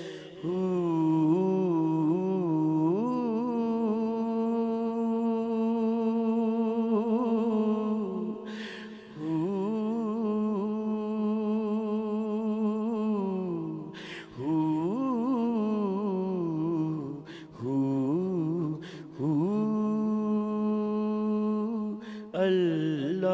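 A man singing a devotional kalam in a drawn-out, ornamented style: long held notes that waver and turn, in several phrases with short breaks between them.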